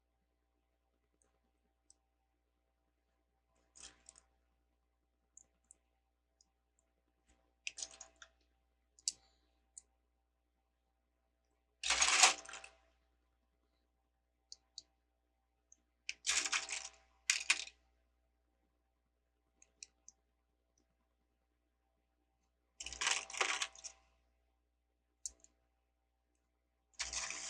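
Plastic Lego bricks clicking and rattling in short bursts as pieces are sorted through, picked up and pressed together, with quiet gaps between; the loudest burst comes near the middle.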